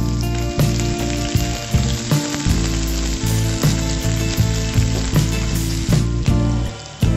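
Prawns, garlic and onion sizzling in hot oil in a non-stick wok, stirred with a plastic slotted spatula, over background music.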